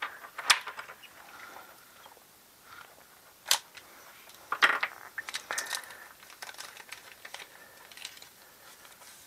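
Small clear plastic bag being handled and pulled open, crinkling in scattered short crackles with a few sharp clicks, the loudest about half a second and three and a half seconds in.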